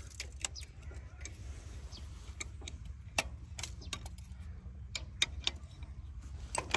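Irregular metallic clicks and taps of an open-end spanner working a bolt on the gear-lever housing of a Fiat 480 tractor, during work to free a jammed gear, over a low steady hum.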